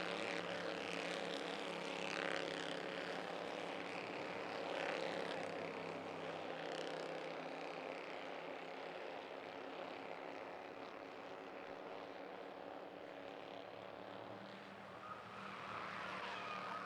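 A field of Bandolero race cars running laps, their small engines droning together. The sound is louder at the start, fades gradually, and grows louder again near the end as the cars come round.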